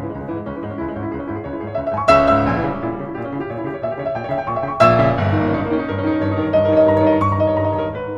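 Background music with sustained pitched notes and melody, with strong accented hits about two seconds in and again near five seconds.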